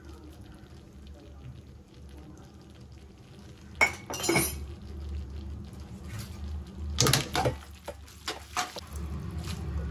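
Steel spoon and steel tongs clinking and scraping against a metal kadai as spaghetti is salted and tossed, with sharp clinks about four seconds in and a run of them near the end, over a steady low hum.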